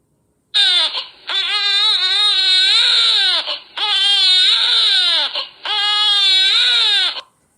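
Baby crying loudly: a short cry, then three long wailing cries that rise and fall in pitch, with brief gasps between them.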